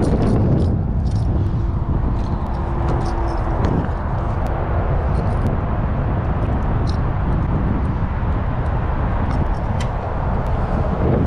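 Steady low rumble of outdoor background noise, with scattered light clicks and a brief faint steady tone early on.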